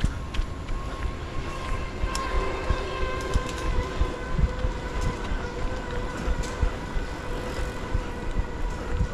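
A runner's footfalls thud steadily, overlaid from about two seconds in by a passing vehicle's steady multi-toned whine that sinks a little in pitch and fades near the end.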